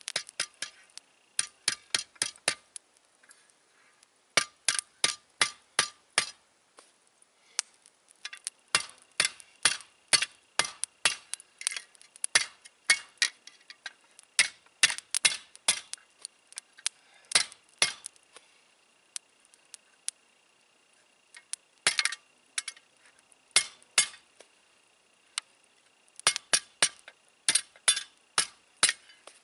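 Hand hammer forging hot metal held in tongs, with clinking metal-on-metal blows in runs of several strikes, about two to three a second, and short pauses between runs.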